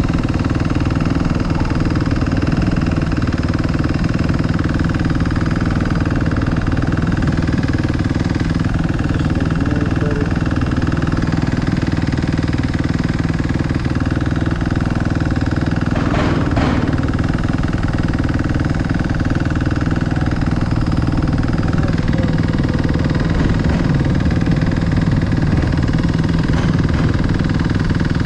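Four-stroke single-cylinder dirt bike engines running steadily at or near idle, with a brief burst of noise a little past halfway.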